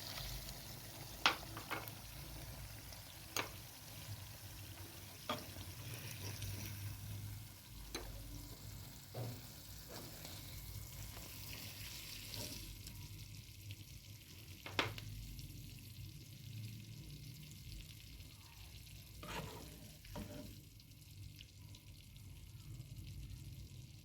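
Serving spoon scraping and clinking against a pot of cooked liver as it is dished out: short sharp knocks every few seconds over a faint sizzle.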